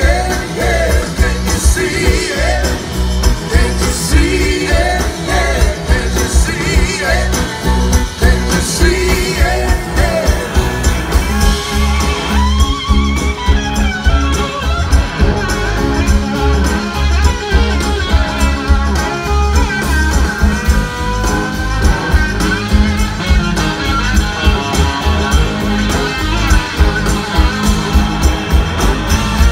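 Live blues-rock band playing loudly, with electric guitars, bass and a steady drum beat. A singer's voice carries the first ten seconds or so, then the guitars take over the lead.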